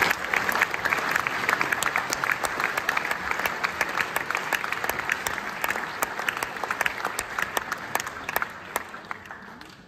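Audience applauding in a theatre hall: many hands clapping, steady at first, then dying away near the end.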